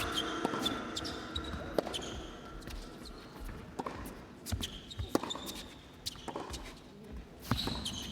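A tennis rally: racket strikes on the ball and the ball bouncing on the court, a second or so apart, with short high shoe squeaks among them.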